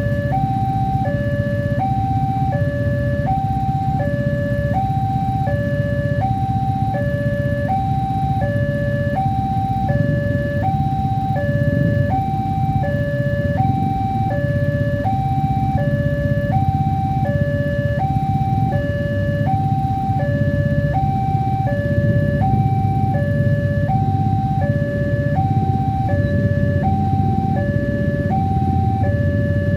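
Indonesian railway level-crossing warning siren sounding a steady two-tone hi-lo alternation, switching pitch about once a second, the crossing's alarm that a train is approaching or passing. A steady low rumble runs underneath.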